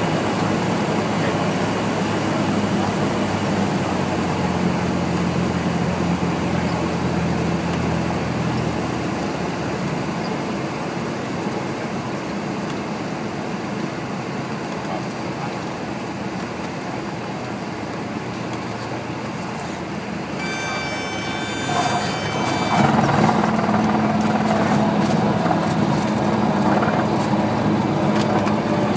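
Cessna 172's engine droning in the cockpit and easing off as power comes back. Near the flare a high steady warning tone, typical of the stall warning, sounds for about two seconds. Then the wheels touch down and a louder rumble of rolling on the runway follows, with a few knocks.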